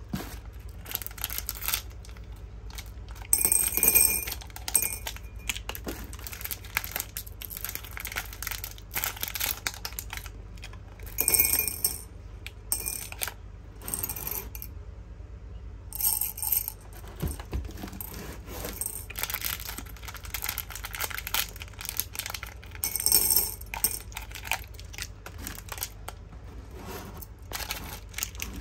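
Hard candies clinking and clattering as they are handled and dropped, a continuous run of sharp clicks with louder bursts every few seconds.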